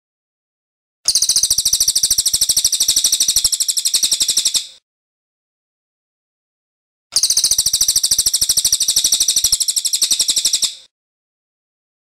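Racket-tailed treepie (cililin) singing two long, rapid rolling trills, each about three and a half seconds long, with a pause of about two and a half seconds between them.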